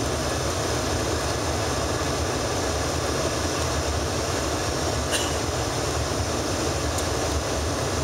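Steady cabin noise of an Embraer ERJ-145 regional jet on approach: an even rumble and rush from its rear-mounted Rolls-Royce AE 3007 turbofans and the airflow over the fuselage. Two short clicks about five and seven seconds in.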